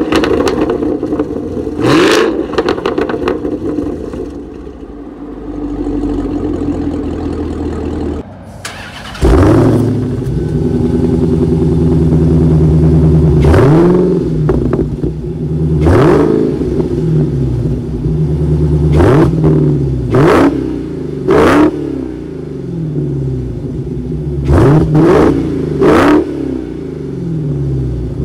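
A 2017 Camaro ZL1's supercharged V8, on a Corsa axle-back exhaust with a secondary cat delete, is revved twice and then idles. After a break about eight seconds in, a 2018 Challenger Hellcat Widebody's supercharged V8 on its stock exhaust comes in loudly and is revved in a string of short blips between stretches of idle.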